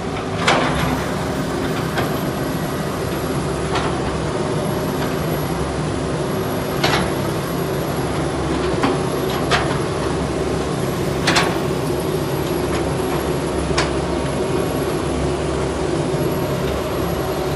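Diesel engine of an excavator running steadily, with about six sharp metallic clanks scattered through it.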